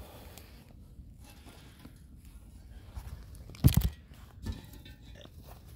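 Handling noise from a phone held close to the microphone: low rustling and rubbing, with a loud knock about three and a half seconds in and a smaller one about a second later.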